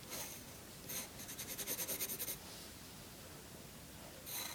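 A drawing tool scratching on paper as a picture is drawn: a couple of short strokes, then a quick run of back-and-forth strokes for about a second, a pause, and one more stroke near the end.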